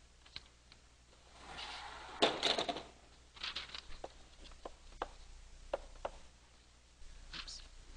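Chalk tapping and scratching on a chalkboard as numbers and tree lines are written, in a scatter of sharp ticks and short scratches. A longer, louder scraping rustle comes about two seconds in.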